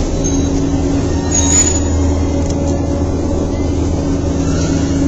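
Staten Island Ferry's engines running with a steady low drone and hum. A brief high-pitched squeak sounds about a second and a half in.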